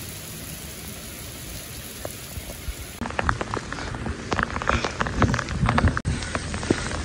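Heavy rain pouring steadily onto pavement and leaves. About three seconds in it gives way to quick, irregular footsteps of sneakers running and splashing on the wet pavement through the downpour.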